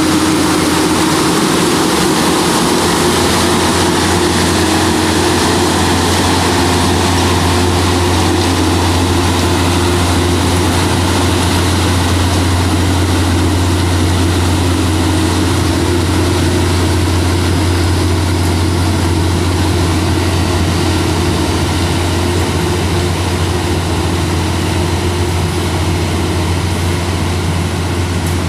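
Heavy diesel engine of railway machinery running steadily with a deep, unchanging drone.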